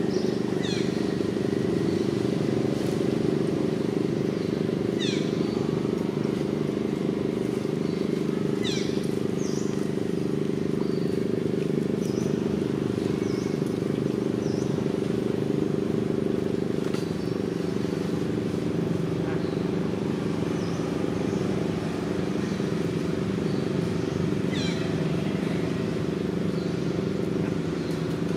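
Steady low hum of a running motor, several tones held together without change. A few brief high chirps sweep downward over it now and then.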